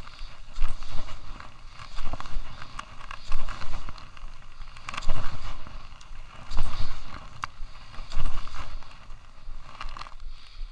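Skis scraping and hissing over groomed snow on a downhill run, swelling in surges about every one and a half seconds, with a steady wind rumble on the body-worn camera's microphone.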